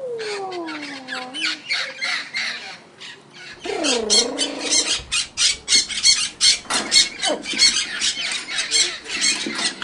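Parrot calls: a few falling whistles at the start, a swooping call about four seconds in, then a fast run of harsh squawks and chatter.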